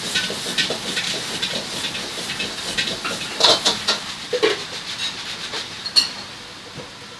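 Stir-fry cooking in a commercial kitchen: a steady hiss of vegetables frying in a wok over a strong gas burner, with metal utensils clanking and knocking against it. A few sharp clanks stand out in the middle and later on, and the hiss dies down near the end.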